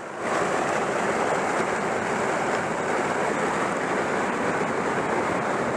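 Rain-swollen creek rushing in a steady roar of water, far fuller than its usual trickle.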